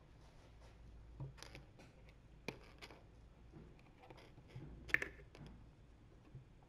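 Scattered light clicks and taps from kittens' paws and claws on a hard floor and against a clear bowl, the loudest cluster about five seconds in.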